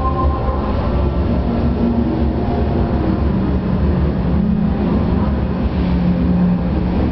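Steady low rumble of a moving vehicle, with faint humming tones above it that shift in pitch.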